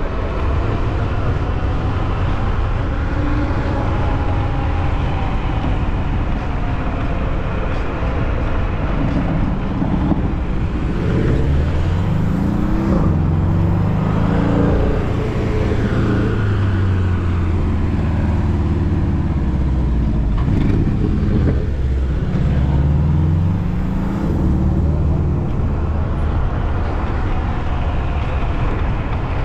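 Wind rushing over the microphone of a camera on a moving bicycle, with car engines passing close by in the traffic lane, their pitch rising and falling, most clearly between about ten and twenty-five seconds in.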